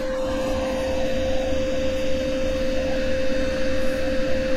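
Steady machine hum: one constant pitched tone over a low, unevenly throbbing rumble.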